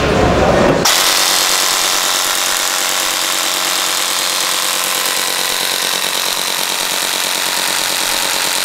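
Electric airsoft Gatling minigun running: its motor and gearbox cycling the spinning barrel cluster at a high rate, a steady, fast mechanical buzz that starts about a second in.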